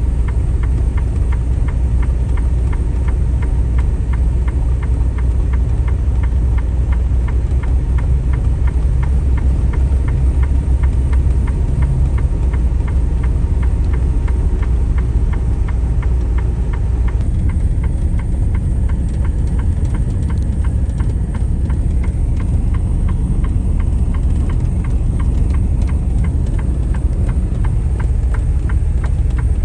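Semi truck's diesel engine running steadily under load with a low, even rumble as the truck climbs slowly up a mountain grade.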